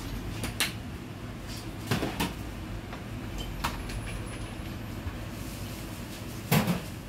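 Background noise of a restaurant dining room: a steady low rumble with a few short knocks and clatters, the loudest about six and a half seconds in.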